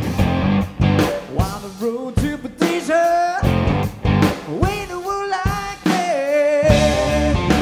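Blues-rock power trio of electric guitar, bass and drums: the band plays short, sharp accented hits, and between them a lead line of sustained notes bends and wavers in pitch.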